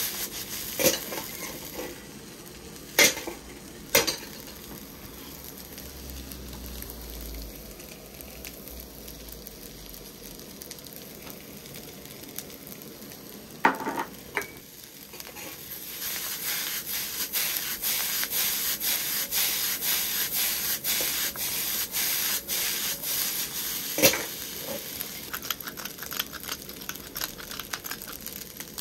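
Fried rice sizzling in a wok over a single-burner gas stove as it is tossed and stirred with a ladle. A steady sizzle is broken by a handful of sharp clanks of ladle and wok, and the scraping and sizzling grow louder and busier over the second half. Near the end a pepper mill grinds over the wok.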